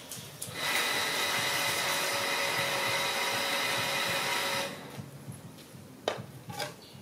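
A small motorised machine whirs with a steady whine over a hiss for about four seconds, starting and cutting off abruptly.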